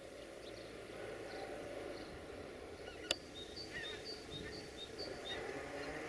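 A flock of geese calling in flight: a run of short, high honks over a low, steady background rumble. A single sharp click about three seconds in.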